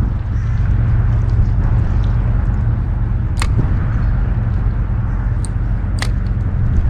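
Wind buffeting the microphone: a loud, steady low rumble, with a few sharp clicks about three and a half and six seconds in.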